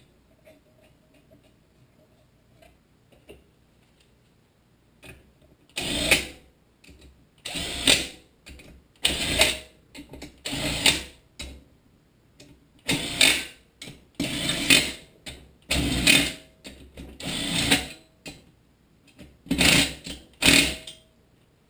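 Cordless drill/driver running the cylinder head bolts down in short bursts, one after another, beginning about six seconds in after a few quiet seconds of faint clicks.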